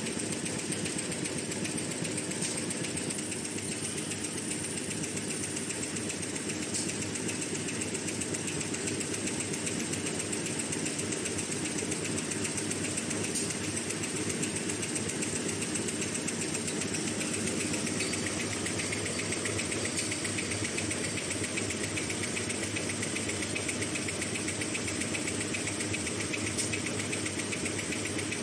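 CIL-AS-288B two-line kitchen towel and facial tissue making machine running steadily, its rollers and folding mechanism making a fast, even mechanical clatter that holds steady throughout.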